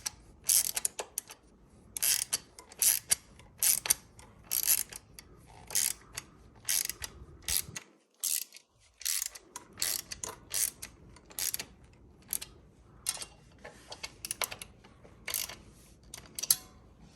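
Hand ratchet wrench clicking in short back-and-forth strokes, tightening the bolts of a front disc-brake adapter. There is a brief pause about eight seconds in.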